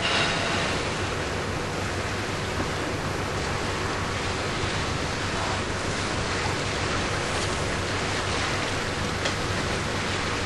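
Steady ocean ambience: a constant wash of waves and wind with no distinct events.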